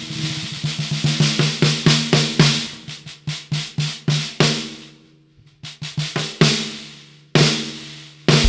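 A 14x8 rimu-shell snare drum with its wires on, played in a fast run of strokes with accents, its low shell ring sounding under each stroke. It rings out to a pause about five seconds in, then gives a few more strokes and a single ringing hit. Right at the end a bass drum comes in with the kit.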